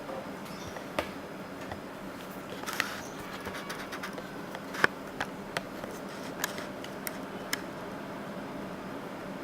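Panasonic CS-S10PKP inverter air conditioner running with a steady hum, with scattered sharp clicks and ticks, several coming close together between about four and eight seconds in.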